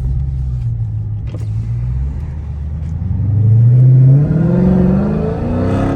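Dodge Challenger Scat Pack's 392 Hemi V8 running steadily, then put under hard acceleration about three seconds in, its engine note climbing steadily in pitch and growing louder, heard from inside the car.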